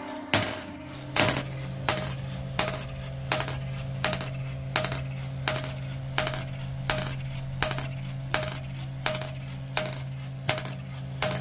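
Homemade power hammer running: a 12-volt DC geared motor hums steadily while the small hammer it swings strikes a steel dumbbell weight about one and a half times a second. Each blow is a sharp metallic clink with a short ring.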